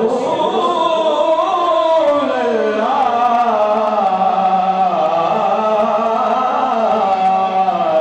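A man singing a naat into a microphone: one long, unbroken melodic line that bends up and down in pitch.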